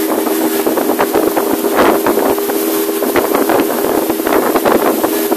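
Small motorboat under way, its motor running at a steady pitch, with wind buffeting the microphone in irregular gusts.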